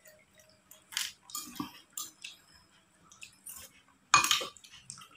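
Spoons clinking against ceramic bowls during a meal: a few scattered short clinks, the loudest about four seconds in.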